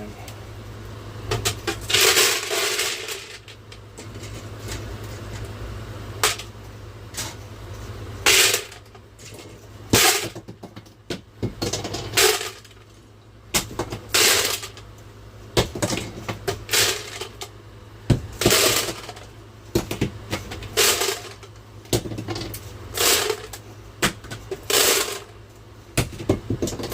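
Loose 9mm cartridges poured into a metal ammo can, clattering and clinking in repeated handfuls every second or two, over a steady low hum.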